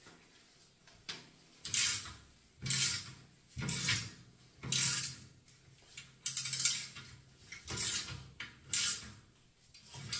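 Ratchet wrench with a hex (Allen) bit clicking in short bursts, about nine strokes roughly a second apart, as it screws a radiator valve's hex-socket tailpiece fully into the radiator.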